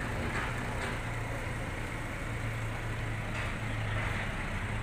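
A motor or engine running steadily: an even low hum under a light hiss.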